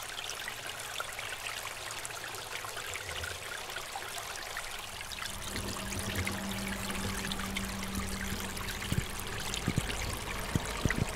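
Thin trickle of water running down a wet, moss-covered rock face in a steady stream, with a few light knocks near the end.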